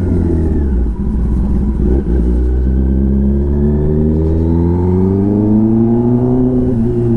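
Kawasaki ZX-10R inline-four engine through a titanium SC-Project exhaust, under way. After a couple of short dips, its pitch climbs slowly for several seconds as the bike accelerates, then falls away near the end.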